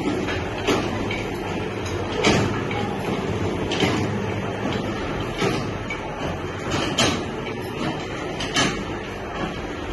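Haleem mixing machine running: a motor-driven stirring arm turns in a large metal pot, a steady mechanical noise with a knock about every second and a half.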